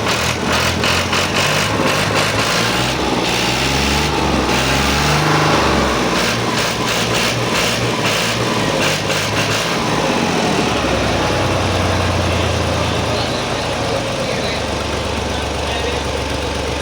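Lorry engine running, its pitch rising and falling in steps for about the first ten seconds, then settling to a steady low idle.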